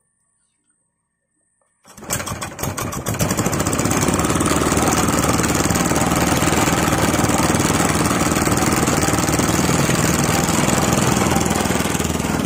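Boat engine started about two seconds in: it catches with an uneven, pulsing run for a moment, then settles into a steady, loud run.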